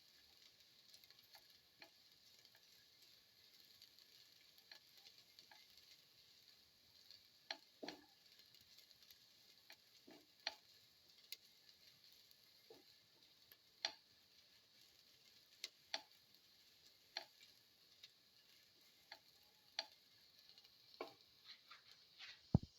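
Faint sizzling of shallots and garlic sauteing in oil in a pan, with irregular light clicks of a utensil against the pan as they are stirred, and a sharper knock near the end.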